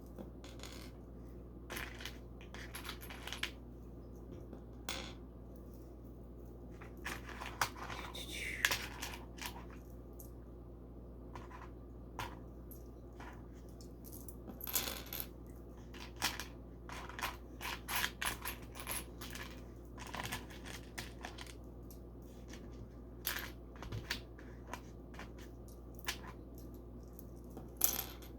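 Small plastic LEGO bricks clicking and clinking as they are handled, picked from a pile and pressed together: many short, irregular clicks, busiest in the middle and near the end. A steady low hum runs underneath.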